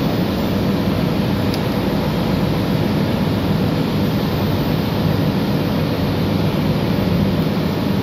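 Steady, loud drone of running machinery in a ship's engine room, even and unbroken, with a faint metallic tick about a second and a half in.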